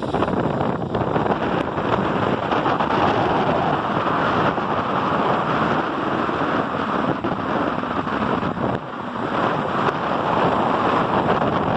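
Sea surf washing onto a beach, a continuous rush of breaking waves that swells and eases, with wind buffeting the microphone.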